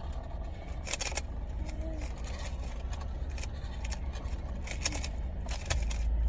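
Scattered sharp plastic clicks of a stickerless Rubik's cube being turned, over the steady low rumble of a car cabin.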